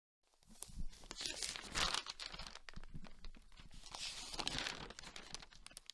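Paper rustling and crinkling: a run of sharp crackles with two louder swells, about a second and a half in and about four seconds in, cutting off suddenly at the end.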